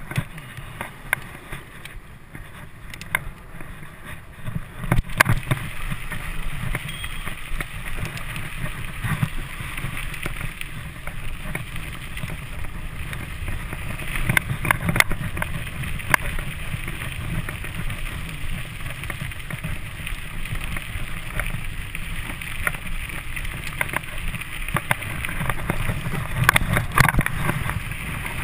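Mountain bike riding fast on a gravel and dirt path: steady wind noise on the microphone and rolling tyre rumble, with frequent rattles and knocks from the bike over bumps. It gets louder about five seconds in.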